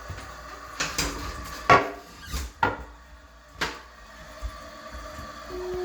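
Several sharp wooden knocks and clacks, about five in three seconds, the loudest early on, as a restroom door and its latch are handled.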